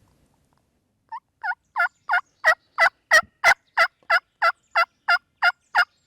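Turkey yelping: a run of about fifteen yelps at roughly three a second, building in loudness over the first few and then holding steady.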